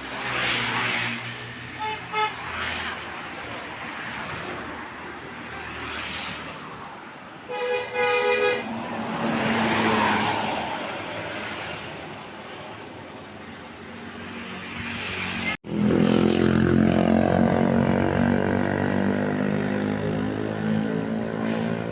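Buses passing on the road, each swelling and fading, with short toots of a multi-tone telolet horn about 2 seconds in and a louder burst of the telolet horn about 8 seconds in. After a sudden break, a bus's diesel engine drones loud and steady nearby.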